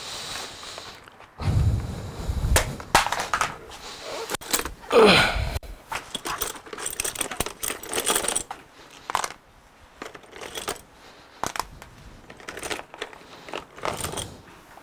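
Plastic clothes pegs being handled and clipped onto the edge of a tablet's glass screen to clamp it, making a string of sharp clicks and knocks. A low rumble of handling sounds about two seconds in.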